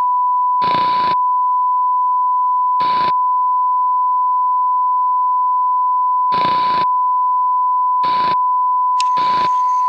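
A loud, steady test tone of the kind played with TV colour bars, broken five times by short bursts of TV static hiss.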